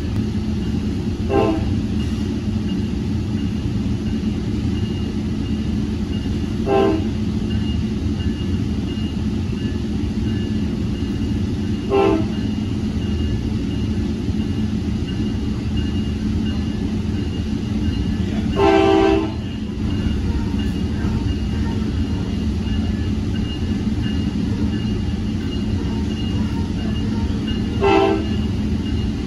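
Tri-Rail commuter train running with a steady low rumble, heard from inside a passenger coach. Its horn sounds five blasts several seconds apart: four short ones and one longer blast about two-thirds of the way through.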